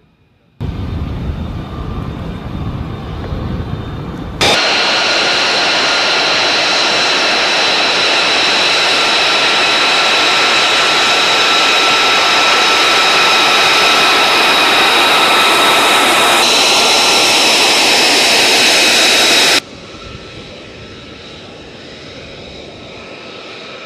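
F-35 Lightning II jet engine: a deep rumble for about four seconds, then a sudden switch to a loud, high-pitched whine with several steady tones over a roar. About twenty seconds in, this drops to a quieter whine.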